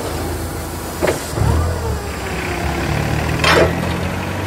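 Truck engine idling steadily, growing stronger a little over a second in, with a couple of sharp clicks, one about a second in and one near the end.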